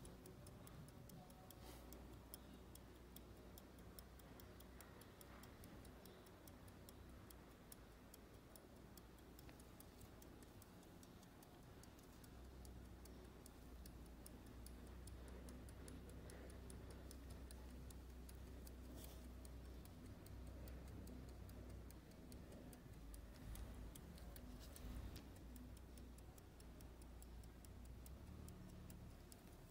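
The movement of a Swiss verge fusee pocket watch (Girardier L'Aine, circa 1815) ticking faintly in a quick, even beat of several ticks a second: the watch is running. A couple of louder handling knocks come about three-quarters of the way through.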